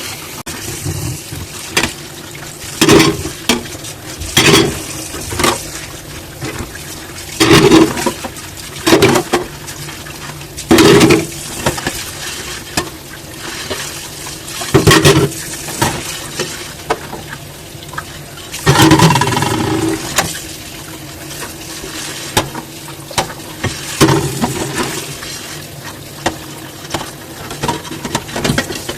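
Dishes being washed by hand in a sink: irregular clinks and clatter of dishes with splashing water, in short loud bursts every second or two.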